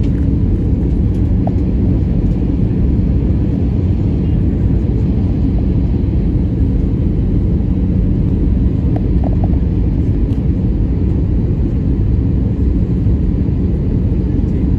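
Steady low drone of an Airbus A320-214's CFM56 turbofan engines, heard inside the cabin from a window seat beside the engine during descent on approach.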